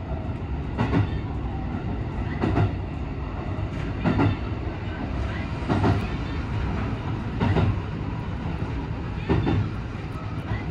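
JR West 223 series electric train rolling slowly along a platform: a steady low rumble with a sharp clack of the wheels over a rail joint about every one and a half to two seconds, the clacks spacing out as the train slows.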